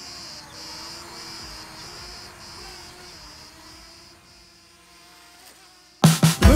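DJI Mavic Mini drone taking off, its thin propeller hum fading as it climbs away, over crickets chirping in a steady pulsing rhythm. Loud music cuts in about six seconds in.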